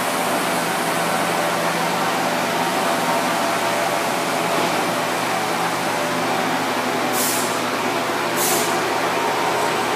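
Steady mechanical hum and rushing noise of running machinery or ventilation, with two short high hisses about seven and eight and a half seconds in.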